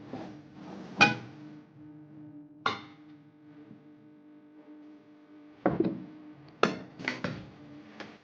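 Metal kitchenware knocked and set down, a series of sharp clinks with brief ringing, loudest about a second in and a cluster near the end, over quiet background music.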